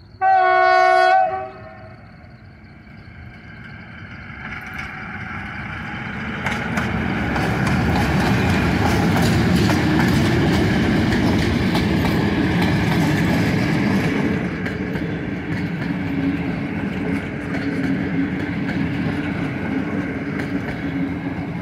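An SM42 diesel locomotive sounds one horn blast, a single steady note about a second long. Its diesel engine then grows louder as it approaches and passes. A string of passenger carriages follows, rolling by with repeated wheel clicks over the rail joints.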